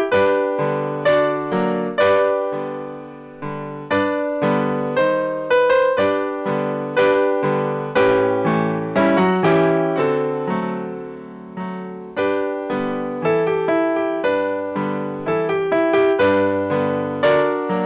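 Solo piano playing silent-film accompaniment: a continuous run of struck chords and melody notes, each ringing and fading away.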